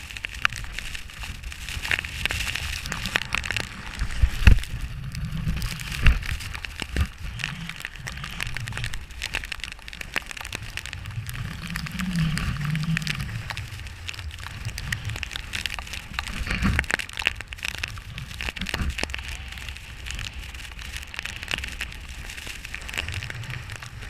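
Snowboard running over snow, recorded on a GoPro Hero3 camera: a crackling scrape of the board with wind buffeting the microphone in uneven low gusts, and two sharp knocks about four and six seconds in.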